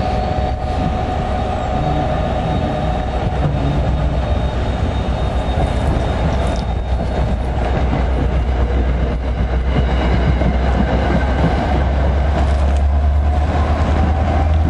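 Commuter train's passenger coaches passing close by at speed: a steady rumble of steel wheels on the rails over a deep low drone.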